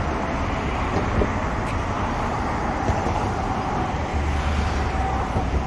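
Steady city street traffic noise, with a deeper low rumble coming in about four seconds in.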